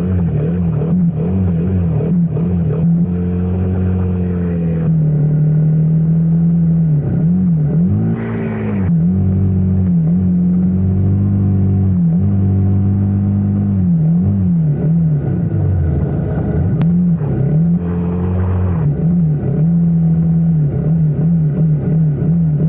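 Honda CRF motorcycle engine running on the move, its pitch repeatedly rising and falling with the throttle between steadier stretches, with two brief harder surges.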